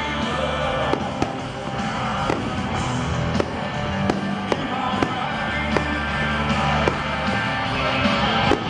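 Aerial fireworks going off with sharp bangs about once a second, irregularly spaced, over steady, loud music from the concert stage.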